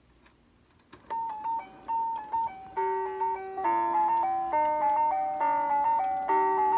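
Mr. Christmas triple-decker carousel's built-in electronic music player: a click, then a bright electronic tune starting note by note about a second in, with lower accompanying notes joining about three seconds in.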